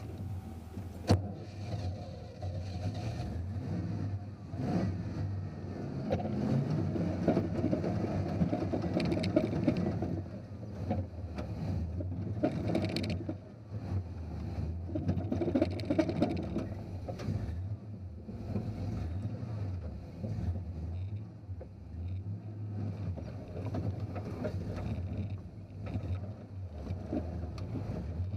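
Off-road vehicle crawling slowly up a rocky climb, its motor running steadily and swelling in stretches under load, with one sharp knock about a second in.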